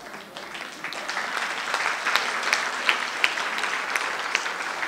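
Theatre audience applauding, a dense patter of hand claps that swells over the first second or so.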